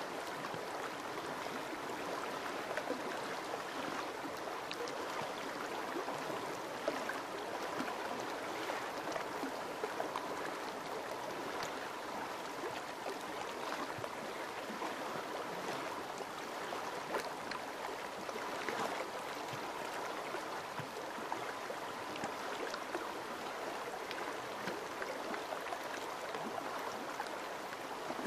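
River water flowing past rocks and shelf ice: a steady rush of water with many small splashes and gurgles scattered through it.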